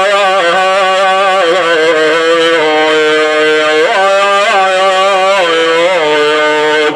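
A man chanting an Arabic funeral elegy, drawing out one word in a long unbroken melismatic phrase whose pitch wavers and turns in ornaments, over a steady low tone held underneath.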